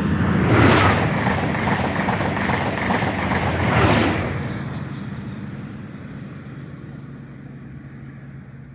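Train passing at speed just after sounding its horn: loudest in the first four seconds with two louder swells, then fading steadily into the distance.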